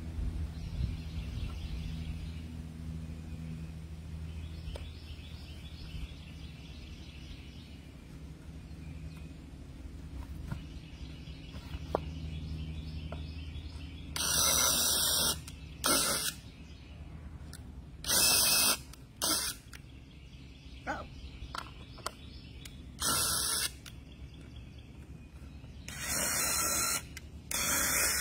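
Cordless drill running in short bursts of under a second, about six times from halfway in, as it works into a cedar fence board. A low steady hum fades out before the drilling starts.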